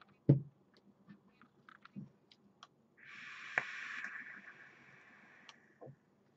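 A low thump, a few light clicks, then about three seconds of hissing as air is drawn through a rebuildable dripping atomizer on an e-cigarette mod while its coil fires. The hiss is strongest at the start of the draw and tails off thinner before stopping.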